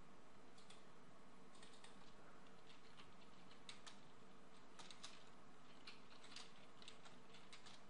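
Faint, irregular clicking of computer keyboard keys being typed, over a steady low background hiss.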